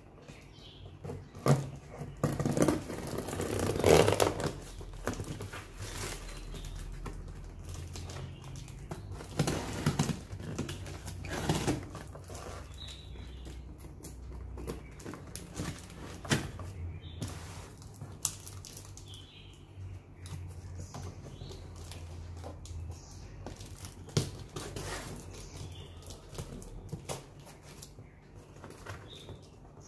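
Scissors cutting and scraping along the packing tape of a cardboard shipping box, with the cardboard rustling and knocking as it is handled, in irregular bursts and clicks. A low steady hum runs underneath.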